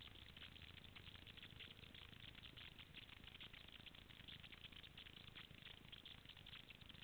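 Near silence: a faint, even crackling hiss.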